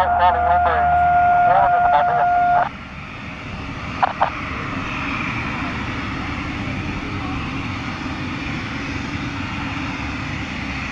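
A loud steady tone with a voice over it, cut off after about two and a half seconds. Then the Twin Commander's turboprop engines run steadily on the runway, growing a little louder about five seconds in and holding there.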